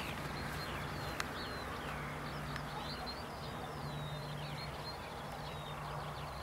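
Small birds chirping, many short high calls one after another, over a steady low hum. A single sharp click about a second in.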